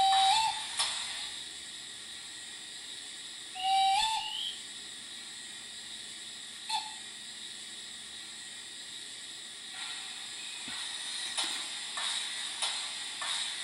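Sound-equipped model steam locomotive (MW class 2-6-0 tank engine) whistling: a held whistle ends with a short upward flick about half a second in, a second short whistle follows about four seconds in, and a brief toot comes near seven seconds, all over a steady steam hiss. From about ten seconds in, soft chuffs start, a little under two a second.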